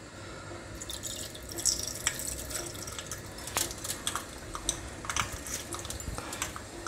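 Mustard seeds sizzling in hot coconut oil in a small pan, starting about a second in, with scattered sharp pops and crackles as they begin to splutter.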